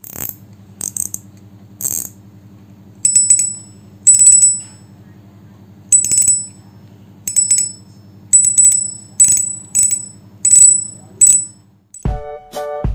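A small bell, most likely a bite-alarm bell clipped to the fishing rod tip, jingles in about a dozen irregular shakes, each with a short high ring. A low steady hum runs underneath, and music comes in near the end.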